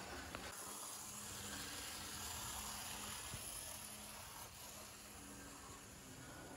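Faint steady hum and hiss of a TYCO Power Torque model locomotive running on the layout track, its pancake motor being run in after repair.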